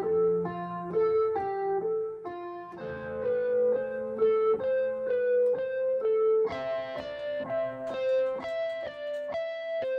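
Roland SK-88 Pro Sound Canvas keyboard playing a melody of single notes, about two a second, over lower held notes. The low notes change about three seconds in, and the sound turns fuller and brighter a few seconds later.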